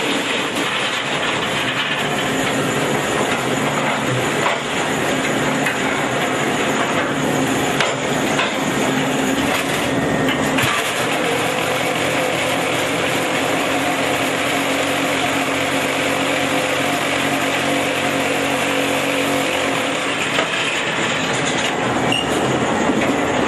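QT4-26 automatic concrete block making machine running, with its electric motors, belt drives and conveyor making a loud, steady mechanical din over a droning hum, broken by a few sharp knocks.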